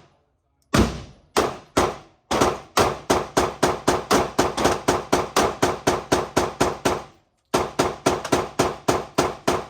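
Rapid gunfire on a shooting range: three spaced shots, then a fast string of about four shots a second, a short pause about seven seconds in, then another fast string.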